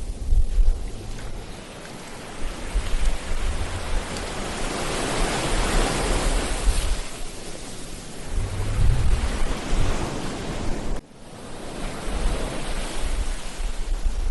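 Ocean surf washing onto a beach, swelling to a peak near the middle, with wind gusting on the microphone as a low rumble. The sound drops out sharply for a moment about eleven seconds in.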